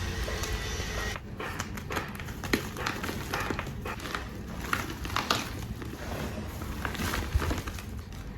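Reformed gym chalk crunching: a quick run of crisp, crackly crunches and snaps, starting about a second in, the loudest two coming partway through and near the end.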